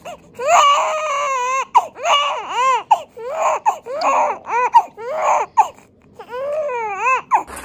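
Newborn baby crying in a string of short wails, each rising and falling in pitch, with a brief pause before the last one.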